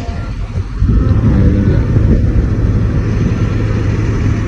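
Large bus diesel engine running close by, revving up and getting louder about a second in, then holding at a loud, steady drone.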